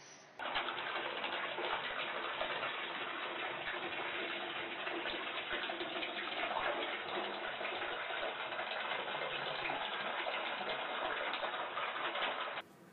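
Bathtub faucet running, a steady stream of water pouring from the spout into the tub. It starts abruptly about half a second in and cuts off just before the end.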